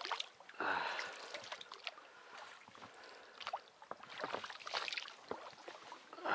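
Dry reeds brushing and crackling against the hull of an inflatable rubber boat as it is pushed into a reed bed, with small water sounds from the boat moving.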